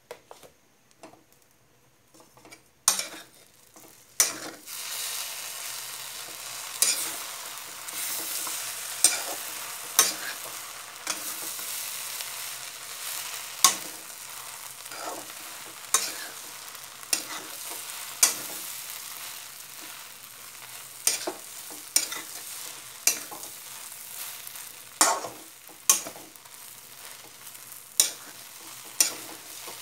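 Food sizzling as it fries in a pan, starting about three seconds in, while a utensil stirs it and knocks sharply against the pan at irregular intervals.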